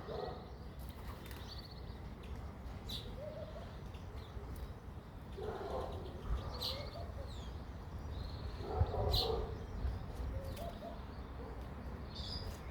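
Garden birds calling: scattered short, high chirps and a few brief gliding notes, with two louder, lower calls about five and a half and nine seconds in.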